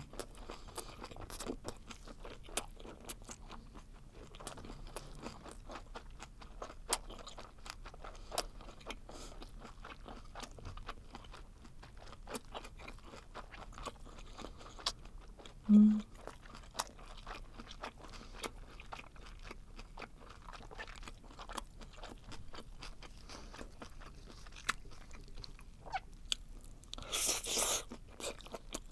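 Close-miked chewing of webfoot octopus: many small wet clicks and squelches as the rubbery flesh is chewed. There is a brief low sound about halfway through, and a louder burst of noise near the end.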